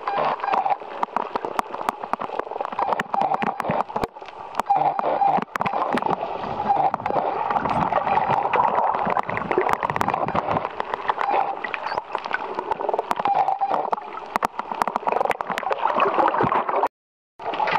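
Underwater sound of water gurgling and sloshing around the camera, dotted with many sharp clicks, and a short dropout to silence near the end.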